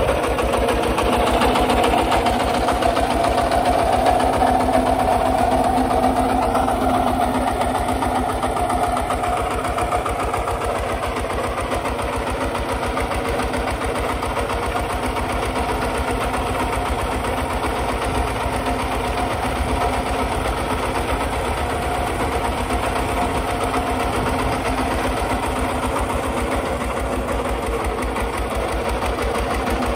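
Kubota RT140 walk-behind tractor's single-cylinder diesel engine running steadily with rapid, even firing beats while it pulls a plough through dry soil.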